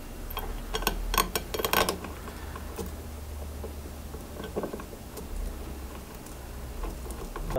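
Small clicks and taps of a CNC router mounting bracket and its screws being handled and fitted against the machine's Z-axis carriage. Most come in a quick cluster in the first two seconds, with scattered faint ticks after, over a low steady hum.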